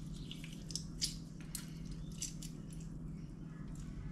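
A lemon squeezed by hand over the soup pot: a few short, wet squishes and crackles, over a steady low hum.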